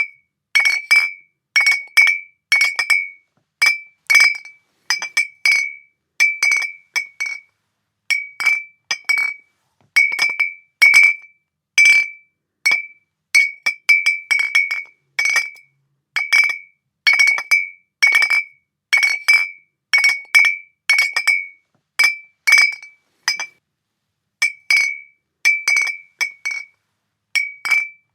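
Glass bottles clinking, each strike ringing at the same clear pitch with a fainter higher ring above it. The clinks come about one to two a second, often in quick pairs, with a couple of short pauses.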